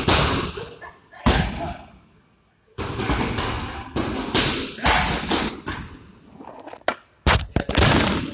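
Kicks and gloved punches landing on Muay Thai kick pads: a run of sharp, loud smacks, some in quick pairs and a tight cluster near the end, each with an echo off the hall.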